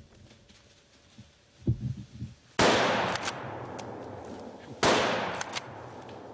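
Two hunting-rifle shots about two seconds apart, each followed by a long echo fading off through the woods.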